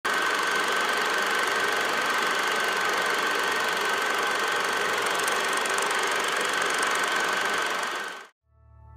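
Vintage film projector sound effect: a steady mechanical whirr with a high whine, cutting off suddenly about eight seconds in. Soft music begins just after.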